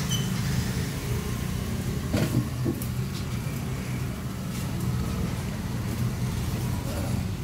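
A steady low mechanical hum, like a motor or engine running, with a few sharp knocks of a large knife working a skipjack tuna on a wooden chopping block, the clearest about two seconds in.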